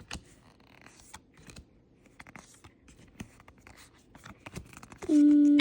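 Pokémon trading cards and a foil booster pack being handled: a run of light scratches, rustles and small clicks. Near the end, a steady even-pitched tone sounds for about a second.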